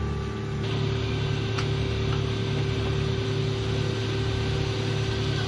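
Fishing boat's engine running steadily, a constant drone with a regular low throb about two to three times a second.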